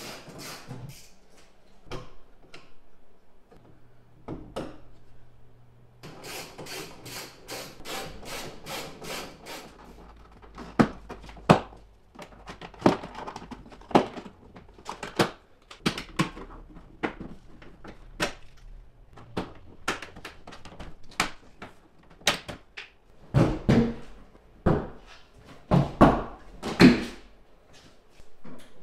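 A ratchet clicking in quick runs as fasteners in the minivan's rear hatch are undone, then a long series of sharp plastic snaps as the hatch's interior trim panel clips are pried loose with a plastic trim tool. A few heavier thuds near the end as the panel comes away.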